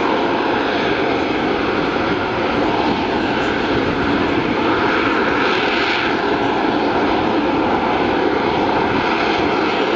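Boeing AV-8B Harrier II+ in a hover, its Rolls-Royce Pegasus vectored-thrust turbofan running at high power: a loud, steady jet noise with a few held tones under it, the hiss swelling briefly about halfway through.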